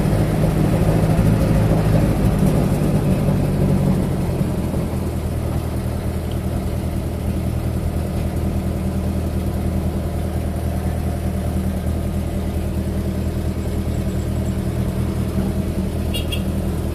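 Chevrolet Opala's engine heard from inside the cabin, pulling for the first few seconds and then settling to a steady idle about four seconds in as the car waits in traffic.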